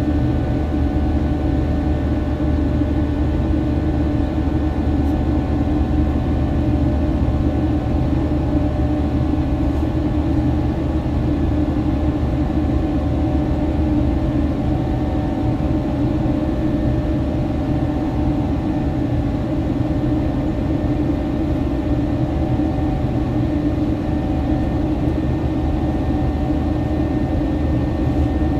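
Steady cabin noise inside a Boeing 737-900 in flight: a low rumble from its CFM56-7B turbofan engines and the rushing air, with a few faint steady hum tones on top.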